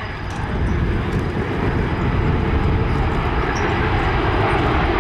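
Jet engines of a large Airbus airliner in a low display pass, a steady rushing engine noise that grows gradually louder.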